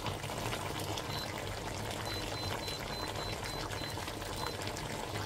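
Beef and lumba-lumba leaf stew simmering in a pan, its broth bubbling and crackling steadily. A faint high-pitched tone pulses on and off in the middle.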